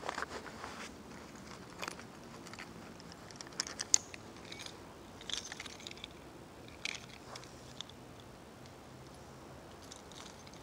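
A knife scraped against a ferro rod in short, irregular strokes, about half a dozen over several seconds, the loudest about four seconds in.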